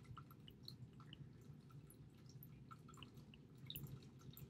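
Near silence: a faint steady low hum with scattered faint ticks from a stylus writing on a tablet.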